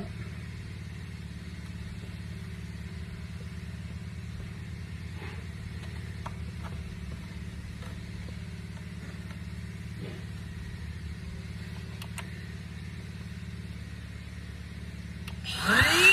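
Steady low hum with a few faint clicks of plastic parts being handled. Near the end a small cordless drill-driver spins up with a quickly rising whine and a fast, even pulsing.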